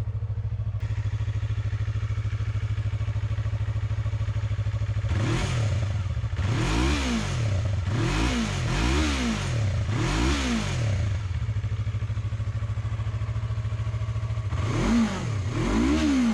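Yamaha YZF-R3's 321cc liquid-cooled parallel-twin four-stroke idling steadily, with a run of quick throttle blips around the middle and two more near the end, each rising and falling in pitch.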